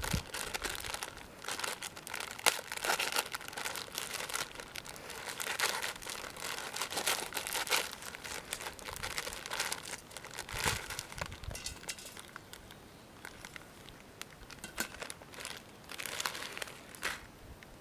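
Plastic instant-noodle packets crinkling in irregular bursts as they are handled and one is opened, easing off for a few seconds after the middle.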